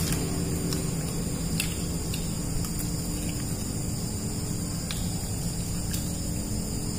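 Steady high-pitched chorus of crickets with a low hum underneath, broken by a few faint sharp clicks.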